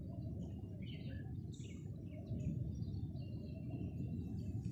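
Birds chirping and calling in short, high notes, over a steady low rumble that carries most of the sound.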